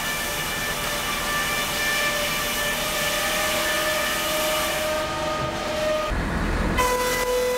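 Large sawmill circular saw cutting through a log: a steady whine with a high hiss. About six seconds in there is a short low rumble, and then the blade runs on at a lower steady pitch as the log clears it.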